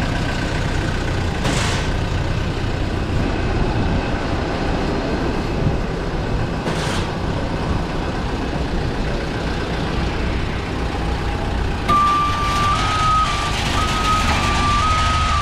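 Airport ground-service vehicle engines running steadily on the apron, with two brief hisses. About twelve seconds in, a vehicle warning alarm starts: a steady tone stepping between two close pitches.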